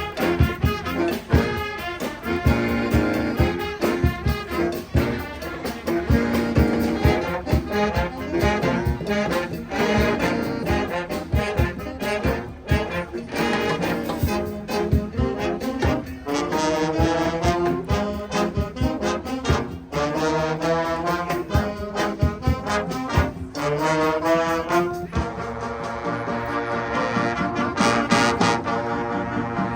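Upbeat brass music, trombones and trumpets playing over a steady drum beat.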